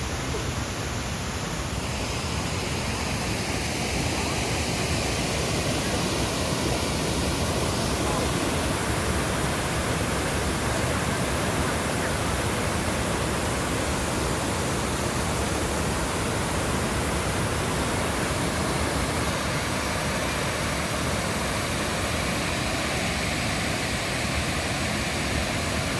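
Waterfall: water rushing and splashing down the cascades, a steady, even rush of noise.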